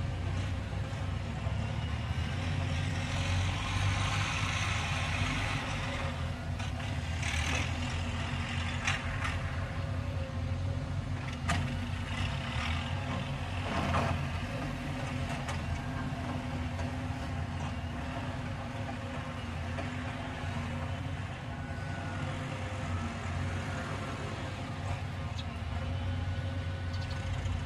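Caterpillar excavator's diesel engine running steadily with a low drone while the machine works its boom, with a couple of hissy surges in the first third and two sharp knocks near the middle.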